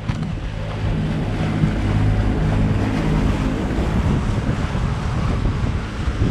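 Wind buffeting the microphone over the rush of waves on open sea, with a low steady hum underneath.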